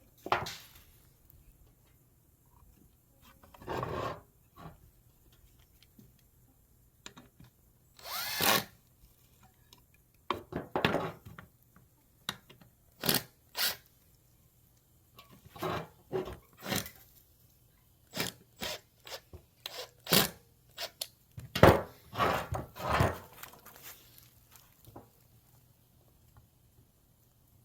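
Power drill driving deck screws into wood in short bursts, between knocks and clicks of the wood pieces and tools being handled.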